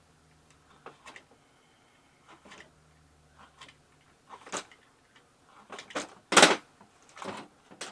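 Scattered clicks and knocks of a Shark vacuum cleaner's plastic parts and filter being handled, the sharpest knock about six and a half seconds in.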